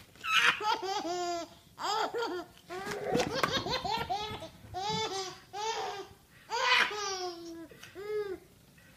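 A baby laughing in short high-pitched squeals, about a dozen bursts one after another, each rising and falling in pitch.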